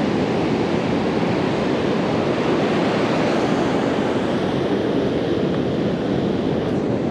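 Pacific Ocean surf washing up a sandy beach close by: a steady, unbroken rush of breaking waves.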